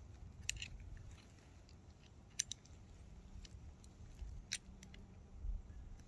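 A few faint, sharp metal clicks as a steel joint bar and its small bolts are handled and fitted against the rail of a miniature railway track.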